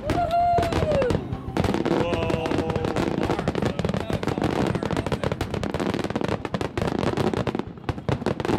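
Rapid barrage of aerial firework shells bursting, dozens of bangs and crackles overlapping with no pause.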